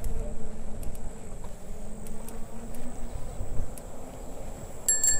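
Wind buffeting the microphone and tyre rumble from a bicycle rolling along a paved trail, with a steady thin high whine over it. About five seconds in comes a short bright metallic ring.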